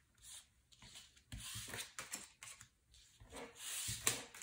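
Tarot cards being slid across a table and gathered into a stack: a series of short, soft scraping rubs with a couple of light knocks.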